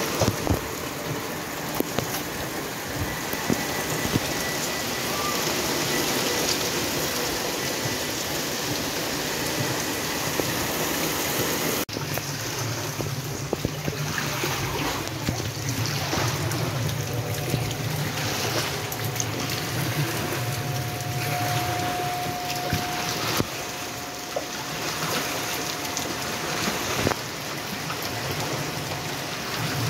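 Heavy rain pouring down and water running over a flooded sidewalk, with a squeegee pushing the water along in repeated strokes.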